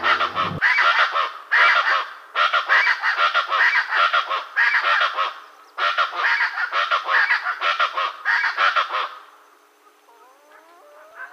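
Harsh, honking bird calls repeated rapidly in bouts. They stop about nine seconds in, and a few fainter sliding calls follow near the end.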